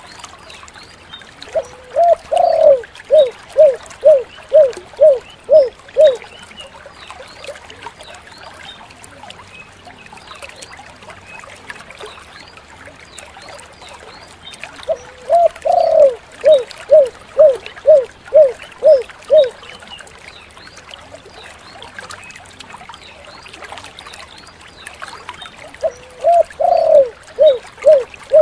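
Spotted dove (tekukur) singing: three song bouts, each a brief low lead-in followed by a run of short, evenly spaced falling coos. The last bout starts near the end and is cut off.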